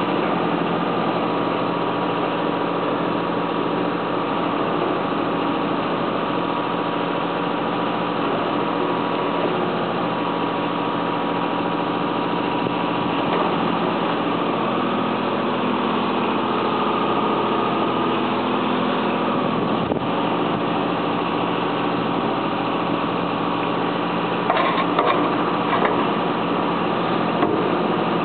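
A tracked digger's engine runs steadily, powering the hydraulic drive of a concrete mixer. A few short knocks come near the end.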